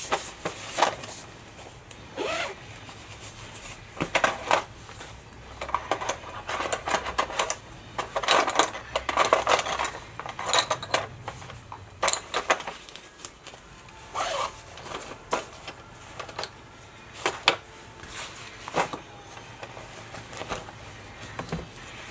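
Hands rummaging in a canvas tote bag: fabric rustling and irregular clicks and knocks as a fabric pouch, a hard case and a phone are taken out and handled, busiest in the middle, over a faint low steady hum.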